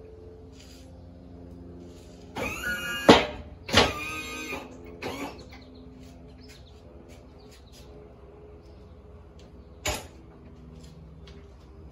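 Metal clanks and creaks from a box blade and three-point hitch linkage: a cluster of loud clanks a few seconds in and one sharp click near the end, over a steady low hum.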